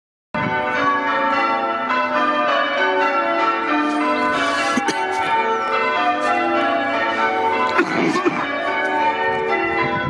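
Huddersfield Parish Church's tower bells ringing, their strokes following one another quickly and overlapping in a continuous peal.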